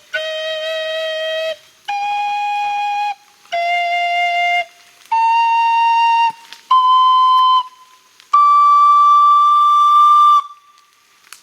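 A flute played haltingly: six separate held notes climbing in pitch, with one dip in the middle, each lasting about a second. The last and highest note is held for about two seconds.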